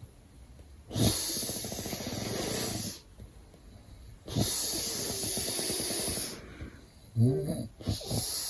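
A man snoring: two long snores of about two seconds each, a few seconds apart, then a short grunt with a wavering pitch near the end.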